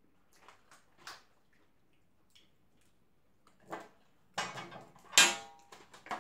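Crab legs being cracked and broken open by hand, shells snapping and crackling, along with the rattle of disposable aluminium foil pans. A few faint clicks at first, then a busier run of cracks and rattles from a little past halfway, the loudest just after five seconds in.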